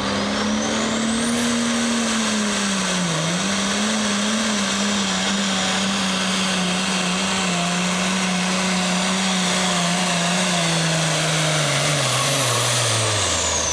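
International pro stock pulling tractor's turbocharged diesel at full throttle, pulling a weight-transfer sled, with a high turbo whistle climbing in the first two seconds and then holding. The engine note holds steady, dips briefly about three seconds in, and near the end the engine and the whistle both drop away as the pull ends.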